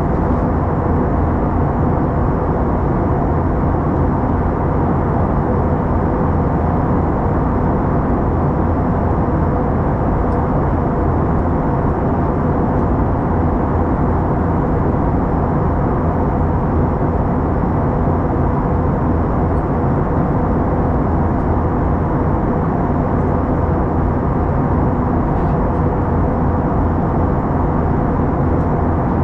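Steady jet cabin noise in flight on an Airbus A321-211, heard from a seat over the wing: the CFM56 turbofan engines and rushing airflow make a continuous low rumble with a faint steady hum, unchanging throughout.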